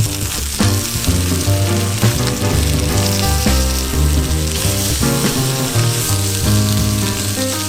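Food frying and sizzling in a pan, a steady hiss, under background music with a bass line and changing chords.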